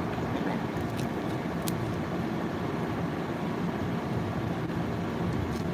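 Air conditioner running with a steady low rumble. Two faint ticks come about a second in and a little later.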